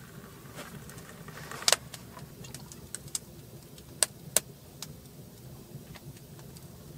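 Hot water pouring from a kettle into a metal camp mug, ending about two seconds in with a sharp clink. A few more sharp clinks follow, over a low steady hum.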